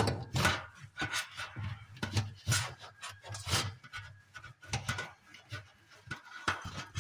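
Scouring sponge scrubbed back and forth over a wet metal mesh range hood grease filter, in quick, uneven strokes about two to three a second.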